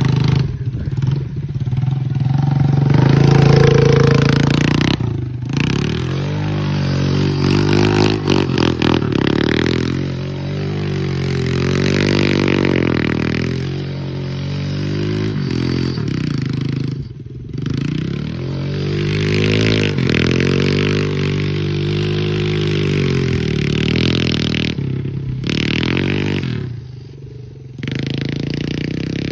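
Small youth quad with a straight-piped exhaust, revving up and down again and again as it is ridden, with a couple of brief lulls off the throttle.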